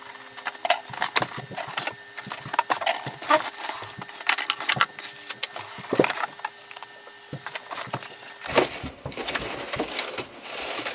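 Unboxing a printer: scissors cutting packing tape and the cardboard box being opened and handled, with irregular crackles and knocks, then a thicker crinkling rustle near the end as a clear plastic bag is pulled off the printer.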